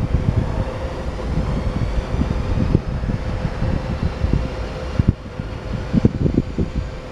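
SBB Re 4/4 II electric locomotive running light and moving slowly away, with a steady hum from its motors and cooling blowers. Wind buffets the microphone in irregular low thumps throughout.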